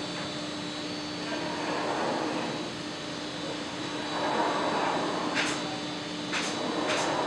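Industrial machinery running with a steady hum and a constant rushing noise that swells and eases twice, then several short, sharp hisses near the end.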